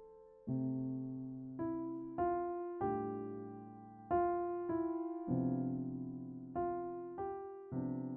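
Solo piano music: slow chords struck one after another, each left to ring and fade before the next.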